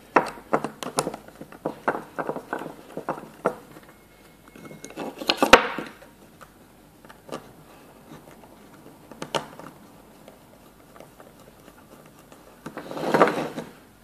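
Clicks and knocks of small parts being handled and fitted while the white parallelogram arms and thumb screws of a centre-finding gauge are assembled on its wooden base. A quick run of clicks comes first, then two longer, louder noises, one about five seconds in and one near the end, with a few single clicks between.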